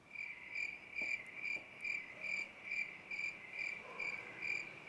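Cricket chirping in an even run of short chirps, a little over two a second, starting abruptly after a line: the comedy "awkward silence" cricket sound effect.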